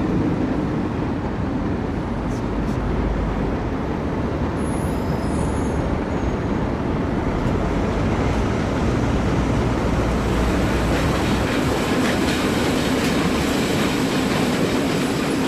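Steady rumbling noise that runs unbroken, heaviest in the low end, with no beat or tune.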